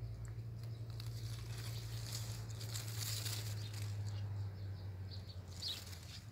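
A steady low hum fades out near the end, with light rustling of zucchini leaves and stems being handled and a few faint high bird chirps in the second half.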